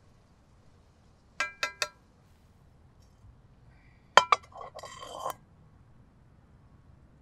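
Cast-iron skillet and wire campfire grill grate: three quick ringing metallic clinks, then about four seconds in a sharp clank and a second of rattling clatter as the skillet is lifted off the grate.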